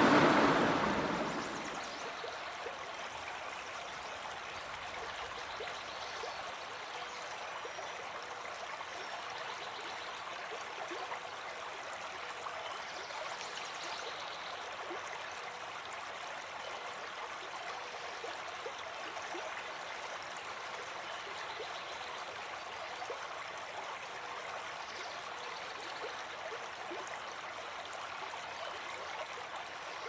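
A shallow river rushing over rocks and riffles: a steady, even rush of water.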